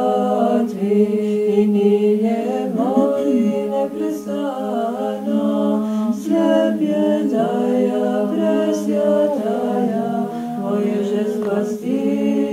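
Orthodox nuns chanting a liturgical hymn a cappella in several voices, with long held notes.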